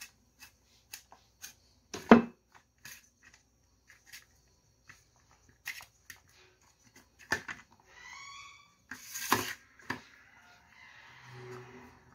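Hands pressing and patting shortcrust dough into a metal removable-bottom tart pan: scattered soft taps and knocks of fingers and pan, the loudest about two seconds in. A brief squeak and a rustle come near the middle.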